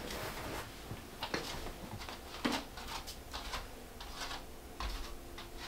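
Irregular light clicks and taps, a couple a second, with a faint steady hum coming in during the second half.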